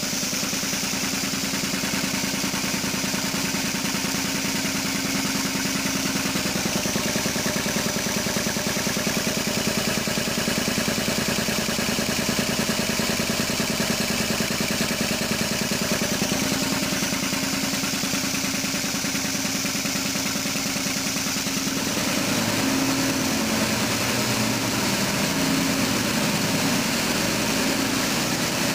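LeRoi Dresser Series 800 three-cylinder, two-stage reciprocating air compressor pump, driven by a 10 hp electric motor, running steadily on a test run. About 22 seconds in the sound turns more uneven and wavering and a little louder.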